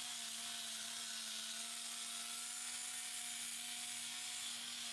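Angle grinder running steadily, its disc grinding against the steel I-beam overhead: a steady whine over a hiss.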